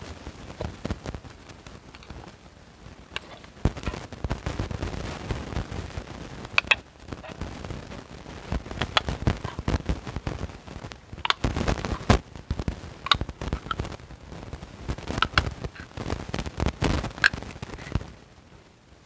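Old church-key style lever can piercer punching and prying its way around the lid of a tin soup can: a long series of sharp metal clicks and pops at uneven intervals, some with a brief ring.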